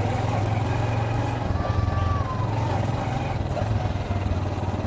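Small motorcycle engine running steadily at low riding speed, a low even hum with a fast pulse.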